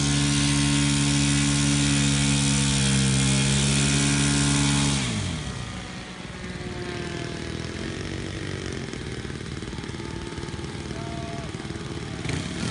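Radio-controlled model warplane's engine running loudly at high throttle, then dropping sharply in pitch and level about five seconds in. A quieter model engine keeps running afterwards and grows louder again near the end.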